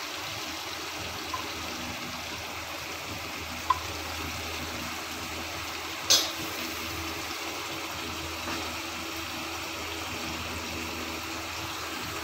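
Steady sizzle of vegetables cooking in a thin sauce in a non-stick pan, with a few light clicks of a plastic spatula against the pan, the sharpest about six seconds in.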